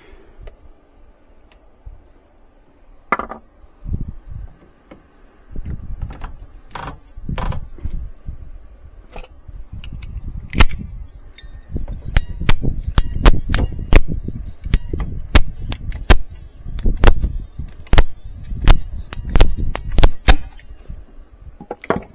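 Sharp clicks and knocks from hands-on work with tools and pipe, sparse at first and then coming about twice a second in the second half, over low rumbling handling noise.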